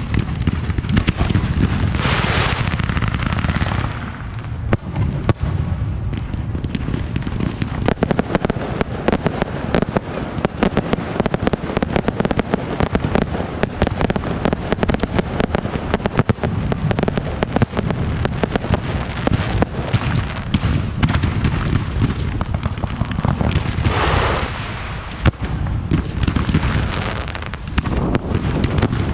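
A dense, continuous barrage of fireworks and firecrackers, crackling without a break. A hissing swell rises over the crackle about two seconds in and again near the end.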